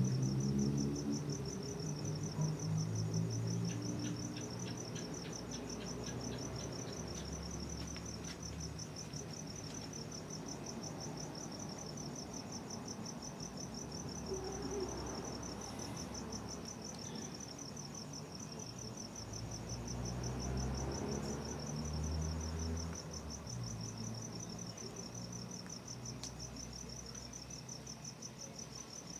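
Crickets chirping in a steady, evenly pulsed high trill that keeps on without a break, over a low background rumble.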